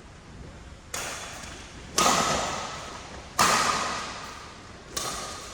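Badminton rackets striking the shuttlecock four times in a rally, the second and third hits the hardest, each crack echoing and fading in a large hall.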